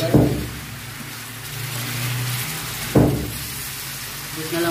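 Chicken and gizzards frying in a wok with a faint sizzle over a steady low hum. There are two sharp knocks, one right at the start and one about three seconds in.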